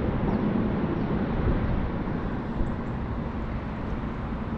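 Wind blowing across the microphone: a steady, gusty noise, heaviest in the low end.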